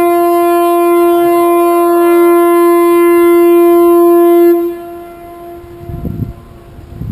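Ship's horn of a car ferry blowing one long, loud, steady blast, the start signal for the triathlon's mass swim. The blast cuts to a fainter tail about four and a half seconds in, and wind rumbles on the microphone near the end.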